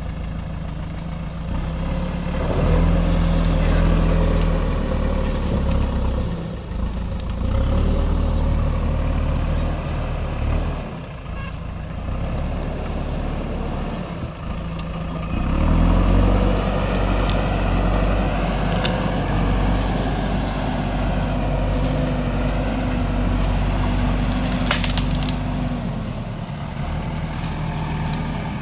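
Diesel engine of a JCB backhoe loader running and revving up repeatedly, rising a few seconds in, again around a quarter of the way through and most strongly just past the halfway point, dropping back toward idle in between.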